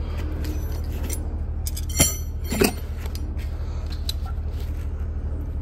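Two sharp metallic clinks of metal tools being handled, about half a second apart, over a steady low hum.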